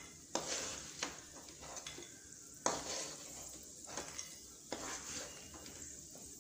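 Wooden spatula scraping and scooping fried cashews, almonds and raisins through hot ghee in a nonstick pan, over a low sizzle, with several sharp scrapes and taps as the nuts are lifted out onto a plate.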